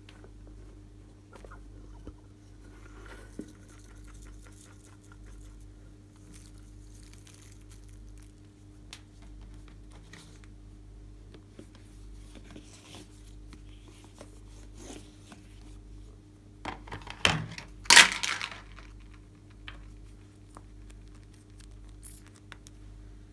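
Hands handling plastic containers and a cardboard makeup palette: light taps, clicks and rustles, with a louder cluster of knocks and rustles about three-quarters of the way through. A steady low hum runs underneath.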